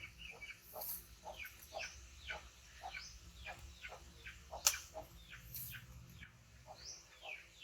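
A small animal squeaking over and over in short high calls that fall in pitch, about two a second, with one sharp click about two-thirds of the way through.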